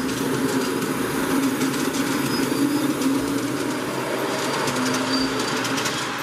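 Ride-on miniature train rolling past on its floor-laid track, with scattered light clicks, over the steady hubbub of a busy exhibition hall.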